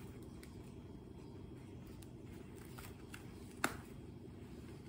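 Faint handling sounds of a disposable diaper being unfastened and pulled off, a few soft ticks and one sharp click about three and a half seconds in, over a steady low hum.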